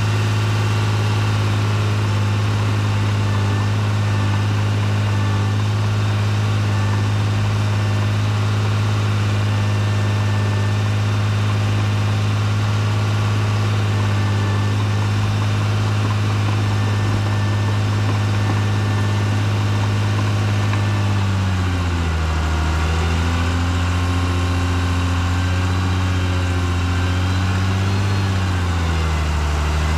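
Caterpillar D3C LGP dozer's diesel engine running steadily, heard from the operator's seat. About 22 seconds in its pitch drops and wavers, and it dips again near the end, as the engine pulls down under load with the blade pushing dirt.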